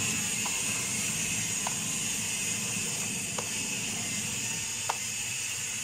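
Tap water running steadily into a basin while a porcupine fish is rinsed and rubbed by hand, with four faint ticks spread through it.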